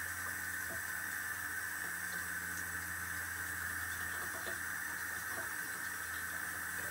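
Water running steadily from a kitchen tap into a stainless steel sink, a constant hiss.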